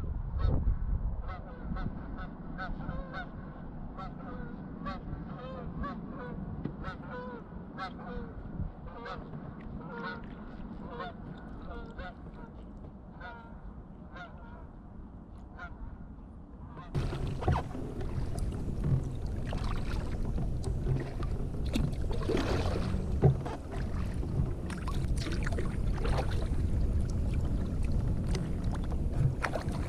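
Geese honking over and over in quick short calls above a low wind rumble. About halfway through, this gives way to a canoe paddle splashing and dripping in the water, with wind buffeting the microphone.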